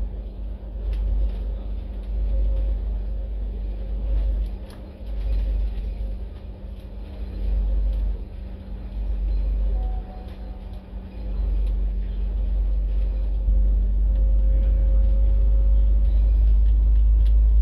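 Cabin rumble of a double-decker bus cruising on a highway, heard from the upper deck: deep engine and road rumble with a steady low hum. The rumble grows louder and more even about two-thirds of the way through.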